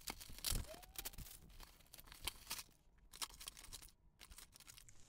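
Costume jewelry clinking and a plastic bag crinkling as a bag of jewelry is emptied and pawed through in a clear plastic bin. Faint, scattered clicks and rustles, busiest in the first two and a half seconds, then sparser.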